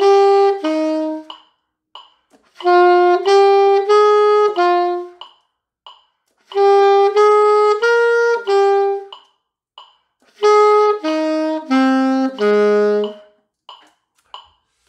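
Alto saxophone playing a slow practice exercise in 3/4 time: four short phrases of about four detached notes each, with a pause after each phrase. The last phrase steps downward in pitch.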